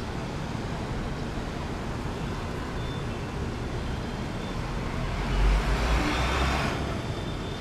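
Steady hum of city road traffic from the streets beyond the grounds. About five seconds in it swells louder for a second or so, with a deep rumble.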